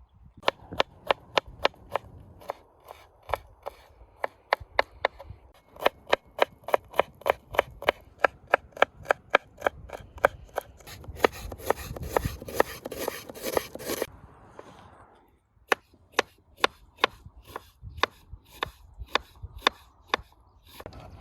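Knife chopping on a cutting board in quick, even strokes, about three a second, with a rougher scraping stretch in the middle and a brief pause before the chopping resumes.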